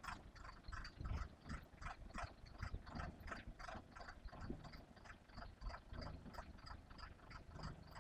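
Faint, irregular clicking and knocking, a few times a second, over a low rumble from a diesel concrete mixer pump while its loading hopper is being lowered to the ground.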